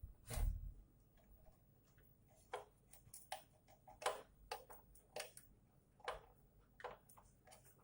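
Scattered light clicks and taps of tools and parts being handled during amplifier repair work, irregular and a few to the second, the loudest a knock with a dull thud about half a second in.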